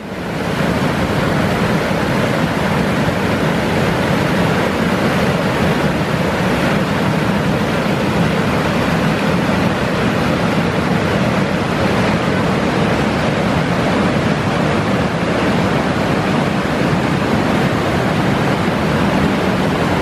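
Steady rushing of river water pouring over the low rock steps and rapids of the Low Force waterfall, a loud, even noise that starts abruptly.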